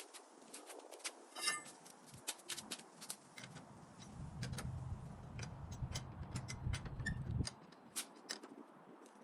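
Irregular clicks and light knocks of hand work on a car wheel, with a low rumbling scrape from about four seconds in until about seven and a half seconds.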